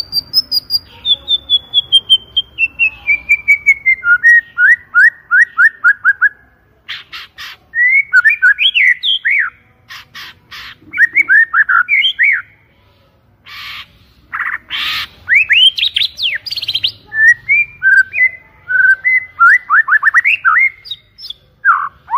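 White-rumped shama singing a loud, varied song: a long run of clear notes stepping down in pitch, then fast rising whistled sweeps broken by harsh rasping notes.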